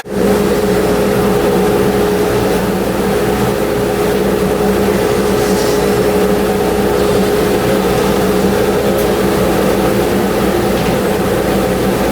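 A machine running steadily, a loud, even mechanical drone with a constant hum.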